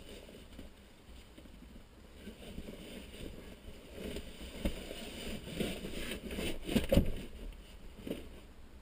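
Gear being handled and loaded into a car's boot, heard from inside the cabin: irregular muffled knocks and rustling, with a louder knock about seven seconds in.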